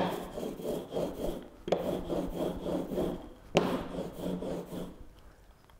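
Hand roller (brayer) rolled through block printing ink on a perspex sheet, a rubbing sound in three long strokes, each starting with a sharp click as the roller comes down. The plate is being inked up to a thin, even coat.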